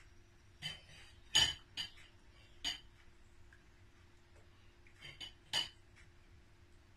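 A metal utensil clinking against the glass batter bowl: a handful of short, sharp clinks in two clusters, the loudest about a second and a half in.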